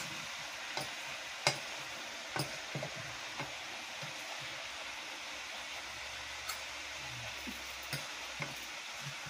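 A spoon clinking and scraping in a pot of noodles as they are dished out, a scattering of light clicks, over a steady sizzling hiss from the cooking on the stove.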